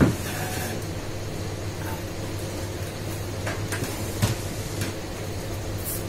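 Knocks and clicks of small objects being handled on a wooden desk: a sharp knock at the start, another about four seconds in, and fainter clicks between, over a steady low hum.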